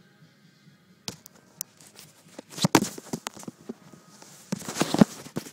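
Cat batting and clawing at a phone held close to it: a few scattered taps, then two rushes of scratching and knocking against the phone, the second one the louder.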